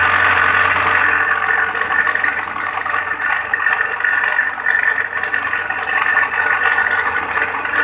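Coconut grater machine running with its grating head spinning at speed, giving a loud, harsh, steady rattling whir over a low hum. The noise is the machine's fault: the owner puts it down to a worn or damaged bearing.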